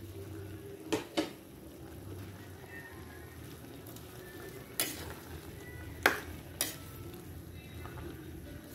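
A cooking utensil stirring a simmering pot of papaya in coconut milk, knocking sharply against the pot about five times over a steady bubbling hiss.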